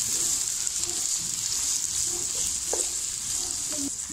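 Sliced onions sizzling in hot oil in a karahi, with a steady high hiss and a few light taps of a wooden spoon stirring them. The onions are being fried until golden.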